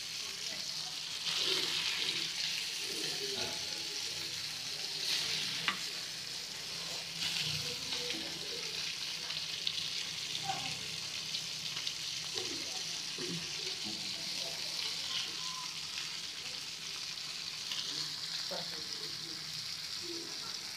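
Masala-coated fish steaks shallow-frying in oil on a dosa griddle, a steady sizzle. A metal spatula scrapes and turns the pieces now and then, with a few sharp clicks.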